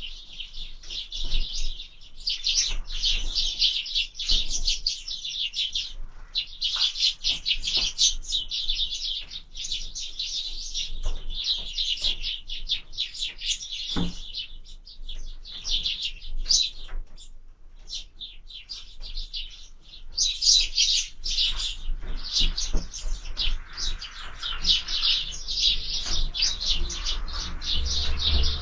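Several sparrows chirping rapidly and almost without pause, with a few brief knocks among the calls.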